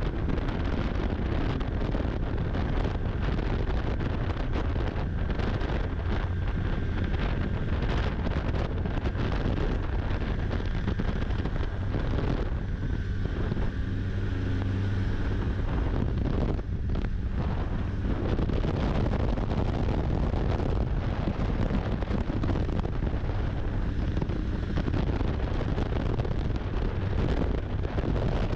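Snowmobile engine running steadily under way, with wind rushing over the microphone. There are brief dips in the noise about 13 and 17 seconds in.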